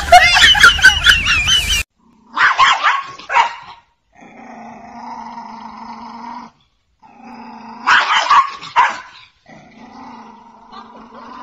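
A small black-and-tan dog barking in two short runs, with long, steady, low growls between them. A few seconds of music end just before the barking begins.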